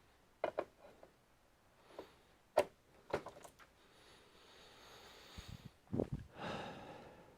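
A series of sharp clicks and knocks, with a stretch of soft rustling and a faint squeak in between, from computer parts being handled by hand.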